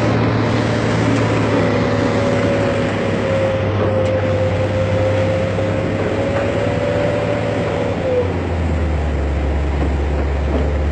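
Heavy diesel engine of construction machinery running steadily under load, with a wavering high whine over it. About eight seconds in the whine stops and the engine note drops lower.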